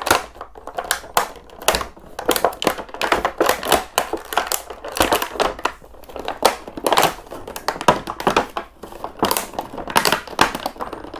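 Stiff plastic toy packaging crinkling and crackling in a quick, irregular run as an action figure is worked free of its plastic tray.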